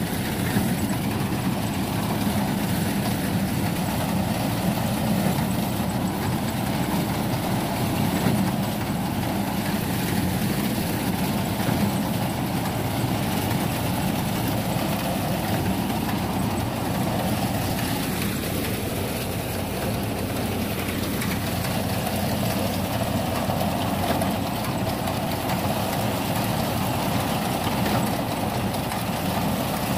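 Tractor engine and a tractor-mounted BCS reaper binder running steadily while cutting standing wheat and tying it into sheaves, with no break or change in pace. The binder has just had its pressure plate and pressure roller ground down and its spring tightened, and is now releasing the tied bundles.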